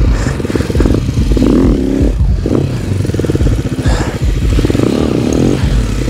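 Sharmax RX300 enduro motorcycle engine revving up and down in repeated bursts, the bike struggling to make headway in heavy snow.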